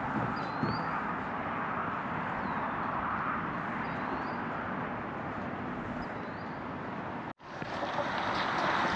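Outdoor lakeshore ambience: a steady rush of wind and choppy water, with a short bird chirp every couple of seconds. The sound cuts out abruptly about seven seconds in and resumes with a similar steady rush.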